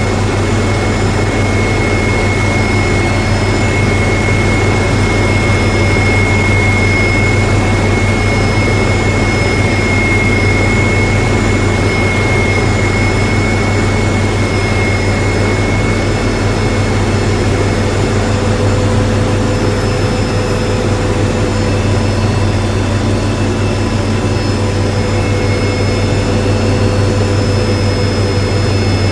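MD 500E helicopter in flight on approach, heard from inside the cockpit. Its turboshaft engine and rotor make a loud, steady deep drone with a thin high turbine whine running through it.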